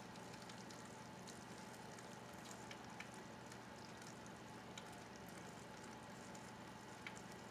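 Faint water pouring through two nested metal strainers onto snow, a low steady hiss with scattered small drip ticks.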